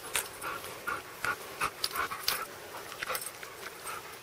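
A dog panting, a quick, even run of short breaths, with a few sharp clicks among them.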